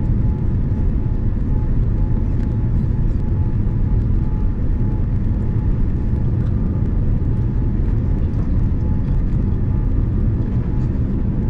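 Cabin noise inside a Boeing 787-9 airliner on final approach: a steady low rumble of engines and airflow with a faint, thin steady tone above it.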